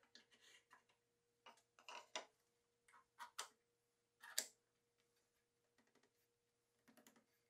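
Scattered clicks and short scrapes of Microjig clamps being slid along their bars and tightened against a board in a workbench vise, about seven in all, the sharpest about four and a half seconds in.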